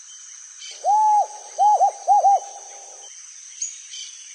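Owl hooting: one long hoot, then two quick pairs of shorter hoots, all at one pitch. Faint forest ambience with small bird chirps and a steady high-pitched drone runs beneath.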